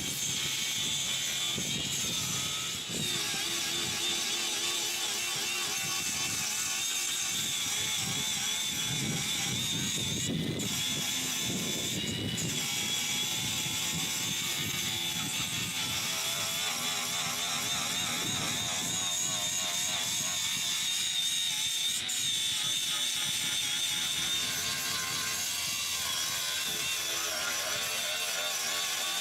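Handheld power tool running continuously on metal, with a high whine that wavers in pitch as the load changes. There are two brief sharper noises about 10 and 12 seconds in.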